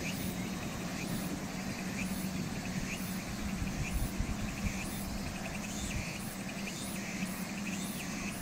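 Insects calling outdoors, high chirps repeating about once a second, over a steady low drone.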